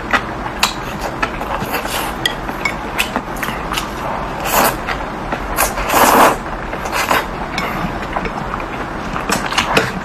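Close-miked eating: wet chewing and lip smacks with many short clicks, and one loud slurp of thick noodles about six seconds in.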